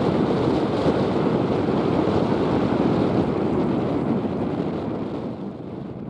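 Wind buffeting the camera microphone, a steady rushing that dies down near the end.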